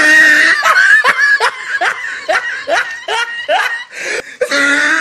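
Loud laughter: a rapid string of short 'ha' bursts, each dropping in pitch, about three a second, with a brief pause about four seconds in.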